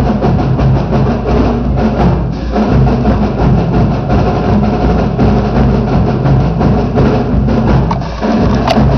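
School band playing live: sustained low notes under a steady run of drum and percussion strikes.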